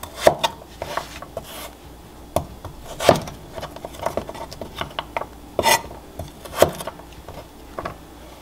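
Chef's knife cutting a carrot into sticks on a wooden cutting board: irregular sharp knocks of the blade through the carrot onto the board, spaced a second or so apart.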